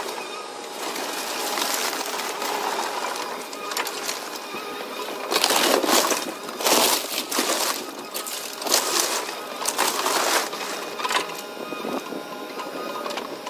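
Cat excavator's engine running steadily. From about five and a half seconds in, wood framing and siding crack and crash in several loud crunches as the bucket tears into the house wall and the debris pile.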